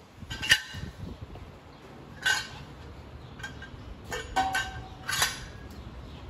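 Exhaust test pipe clinking against the car's exhaust flange and hangers as it is fitted into place: about five sharp metallic clinks, one a little past the middle ringing briefly.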